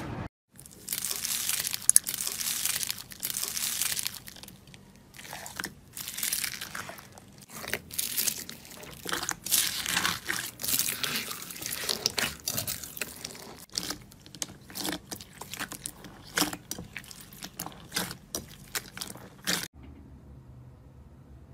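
Hands squeezing and kneading slime mixed with foam beads, making a dense, irregular run of crunching and crackling pops. It cuts off abruptly near the end, leaving a low, quiet hum.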